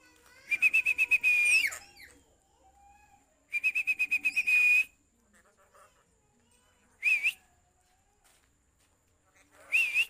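Whistling: two warbling, rapidly trilled whistles of about a second each, each ending in an upward flick, then two short upswept whistle notes near the end.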